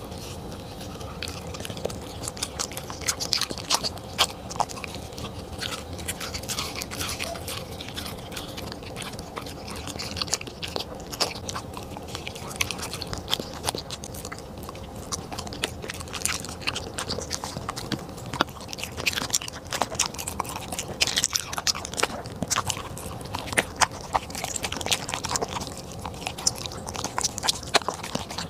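A corgi chewing and biting its food, with many sharp, irregular crunching and smacking clicks throughout.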